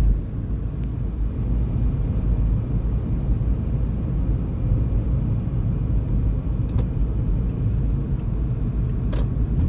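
Steady low rumble of a car driving, heard from inside the cabin: road and tyre noise with engine drone. Two faint ticks come near the end.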